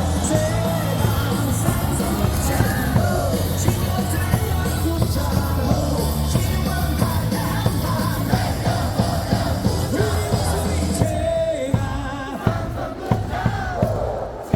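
Stadium loudspeaker music with a heavy beat and a crowd singing and shouting along; the music cuts out about eleven seconds in, leaving the crowd cheering.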